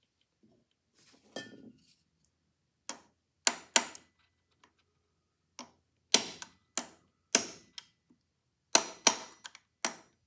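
Small hammer tapping a punch against the rust-seized parts of an Amberola V phonograph's spring motor. About a dozen light metallic taps, each ringing briefly, come irregularly, singly and in quick pairs, and grow more frequent near the end. The parts are not budging.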